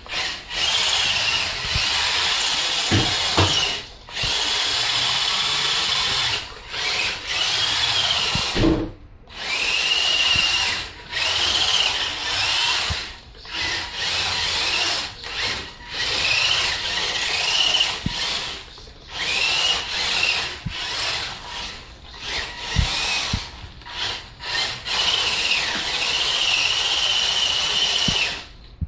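Redcat Racing Sumo RC 1/24 scale monster truck's small electric motor whining in repeated bursts of one to three seconds, the pitch rising and falling as it speeds up and lets off, with its Scotch-tape-wrapped tires sliding and hissing on a hardwood floor as it drifts.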